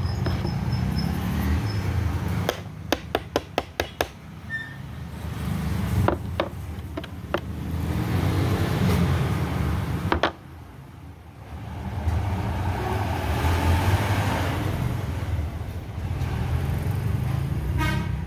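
Sharp clicks and taps of small parts being handled while a hair clipper is taken apart and put back together, including a quick run of about six clicks a few seconds in, over a steady low rumble.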